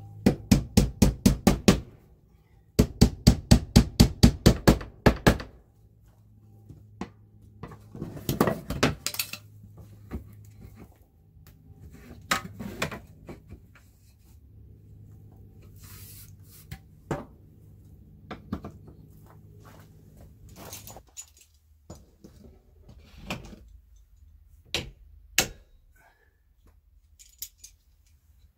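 Claw hammer driving a nail into fiber-cement lap siding: two quick runs of blows, about five a second, the second run longer. Scattered lighter knocks and taps follow.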